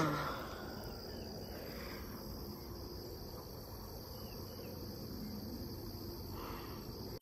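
Steady, high-pitched chorus of insects chirring together at several pitches, with a faint low background rumble underneath.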